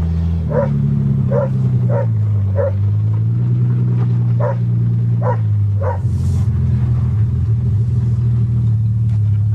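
A 1982 Toyota Cressida's engine running steadily under way, its pitch shifting a few times. A dog barks about eight times in short yips over the first six seconds, then stops.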